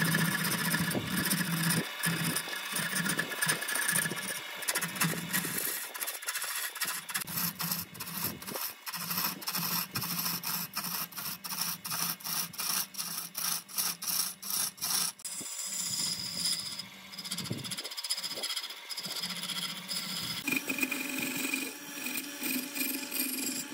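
Wood lathe running with a steady hum while a hand-held turning tool scrapes and cuts into the spinning wooden blank. From about six to fifteen seconds in, the cut turns into a rapid run of even ticks, and near the end a higher steady tone joins in.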